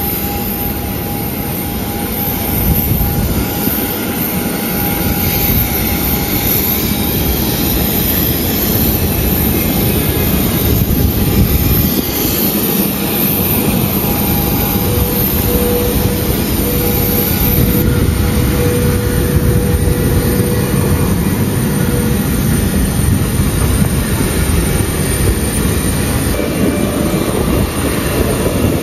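Steady, loud roar of jet aircraft turbines with a thin whining tone held through it.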